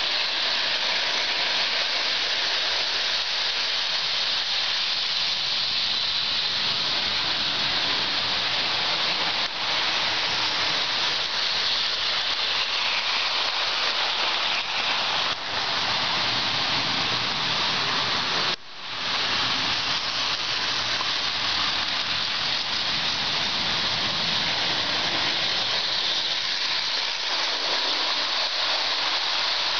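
Lionel O gauge model trains running on metal three-rail track: a steady rolling, rattling hiss of wheels and electric motors, with no break except one brief dropout a little past the middle.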